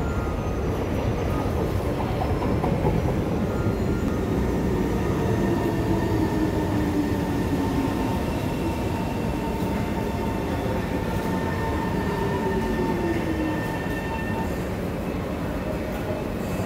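SMRT C151 metro train pulling into the platform and braking to a stop, with a steady rumble and a motor whine that falls in pitch several times as it slows.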